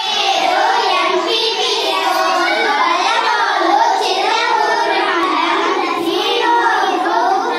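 A group of young girls singing together in unison, a song in Manipuri.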